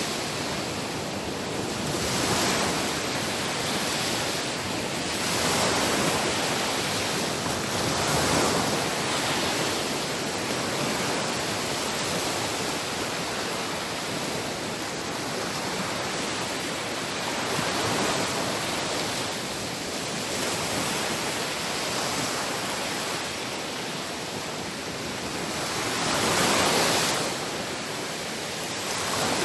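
Sea waves washing onto a shore: a steady roar of surf that swells and ebbs every few seconds, with the biggest surge near the end.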